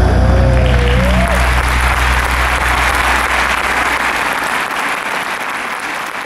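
An audience applauding in an arena as the music's last held, wavering note and its bass die away in the first second or so.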